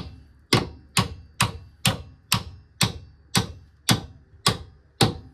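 Hammer striking a bolt to drive it into the car's front suspension, about ten evenly spaced blows, roughly two a second, each with a short metallic ring.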